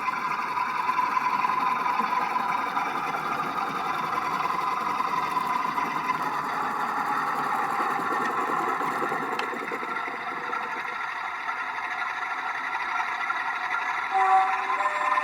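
Hornby TTS Class 47 sound decoder playing a Sulzer diesel engine sound through the small speaker of a model Class 27 locomotive running on a layout, steady and thin with no deep bass. A few short steady tones come in near the end.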